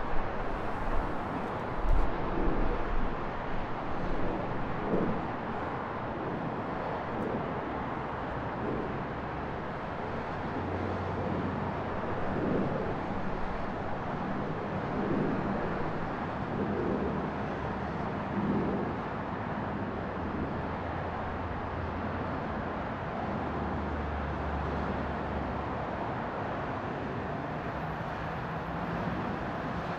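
Steady city traffic noise of passing cars, with a few low bumps in the first couple of seconds and a low vehicle hum that swells and fades twice in the middle.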